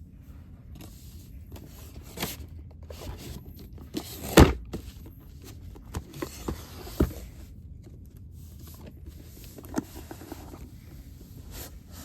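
Cardboard Pokémon Elite Trainer Box being opened and its contents handled: scattered knocks, clicks and rustles of cardboard and packaging, the loudest a sharp knock about four seconds in.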